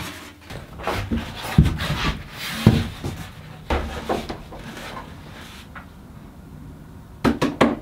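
Sheets of XPS blue foam board rubbing and scraping against each other as they are handled and stacked, with a few sharp knocks in the first few seconds and a short cluster of clicks near the end.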